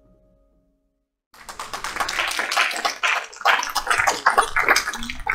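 The last notes of a soft piano music track fade out, and after about a second of silence a congregation starts clapping suddenly and keeps applauding.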